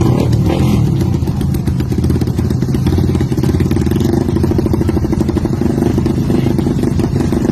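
Three modified drag-racing motorcycles with open racing exhausts revved together, a loud, sustained engine din.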